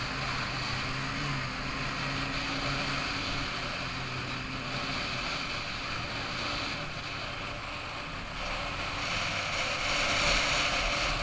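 Snowmobile engine running steadily under way, heard from the rider's seat, with wind rushing over the microphone. The rushing noise grows louder near the end.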